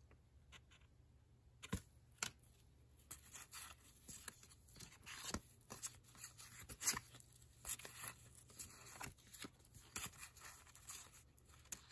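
Faint, irregular flicks and slides of 1990 Upper Deck baseball cards being handled in a stack, each card slid off and moved to the back of the pile.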